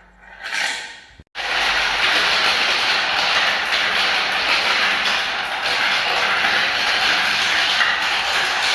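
Many small balls rolling and rattling down a marble-run track. There is a short swell of rolling, then a sudden cut just after a second in, then a dense, steady rattle.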